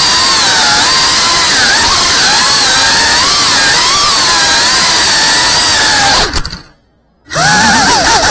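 Small FPV drone's motors and propellers whining loudly, the pitch wavering up and down with the throttle. About six seconds in the motors cut out to near silence for under a second, then spool back up with rising whines.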